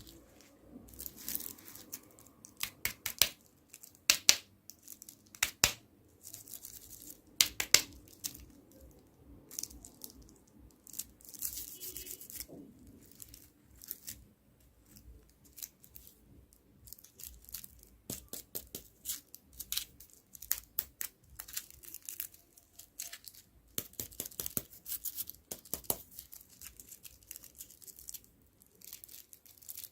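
Wrappers on candy and toy packaging being torn open and crinkled by hand, in irregular sharp crackles and rustling bursts.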